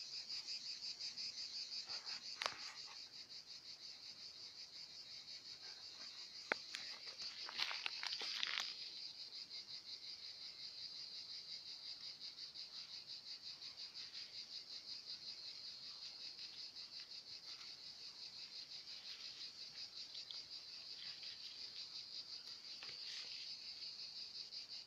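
Insects trilling, a steady high-pitched pulsing chorus. A few brief rustles and clicks, about two seconds in and again around seven to nine seconds in.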